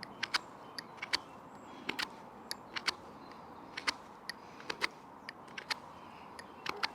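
Swiss Army knife blade whittling a piece of not fully seasoned wood into a wedge: irregular sharp cutting clicks and snaps, a few a second.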